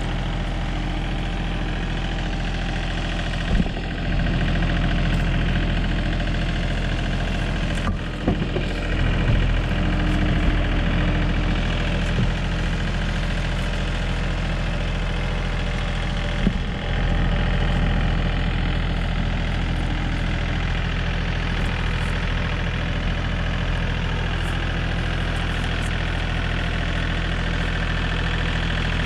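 John Deere tractor engine running steadily, with three brief clunks spread through it.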